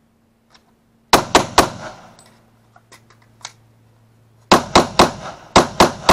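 Glock 20 pistol in 10mm Auto firing rapid shots: three in quick succession, then, after a pause of about three seconds, a second string of five or six, each crack trailing off briefly.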